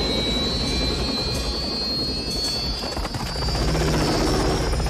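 Light helicopter flying low and close: fast rotor chop with a high turbine whine that rises slowly in pitch.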